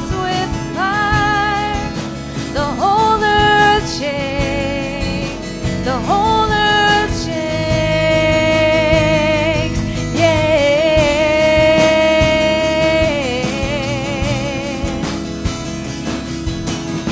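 Live worship band music: a singer holds long notes with a wavering vibrato over a steady drum beat and accompanying instruments.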